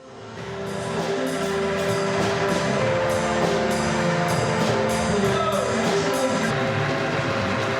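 Angklung ensemble playing: shaken bamboo tubes sounding sustained pitched notes over a steady beat of about three strikes a second. The music fades in at the start, and the beat stops near the end while the notes carry on.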